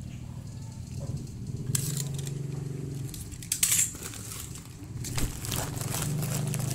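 Paper and plastic packaging crinkling and crackling as it is handled, in several bursts, the loudest about three and a half seconds in.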